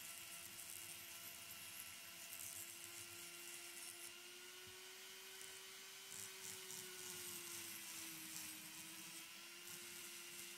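Handheld rotary tool with a fine pink grinding stone bit, running with a steady whine as it smooths a carved stone sculpture in the finishing pass. The pitch rises slightly about four seconds in and dips briefly near eight seconds.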